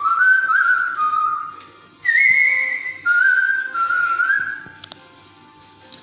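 Clear whistling of a pop-song melody in three short phrases with small pitch steps and slides, stopping about four and a half seconds in.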